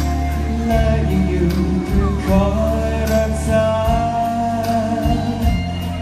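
Amplified live pop ballad over a PA: a male singer holds a long sung note over backing music with deep bass and a steady drum beat.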